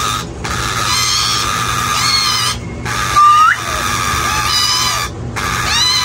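Indian ringneck parakeet chick giving its food-begging call while being hand-fed: a loud, continuous squealing call broken by brief pauses roughly every two and a half seconds, with one call sliding sharply up in pitch a little after three seconds in.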